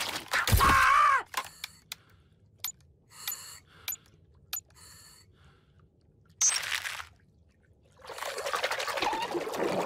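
Cartoon underwater sound effects: a cat character's short wordless cry, then a few sharp camera-shutter clicks between short bubbly water sounds, and a swell of rushing water near the end.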